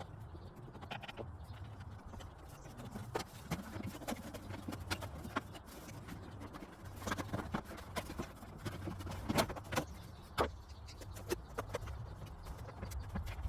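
Irregular clicks, clinks and knocks of hand tools and engine-bay parts being handled while stripping components off a VW Beetle 1.8 Turbo engine, over a low steady hum.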